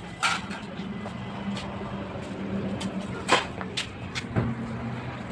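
Steady low mechanical hum, with a few sharp knocks as the plywood wardrobe carcass is moved on the concrete floor.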